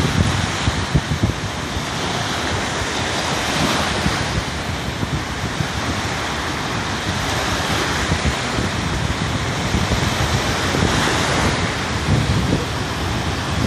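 Wind buffeting the microphone over the steady wash of surf on a beach, with a few short scrabbling sounds from a Staffordshire bull terrier's paws digging in dry sand.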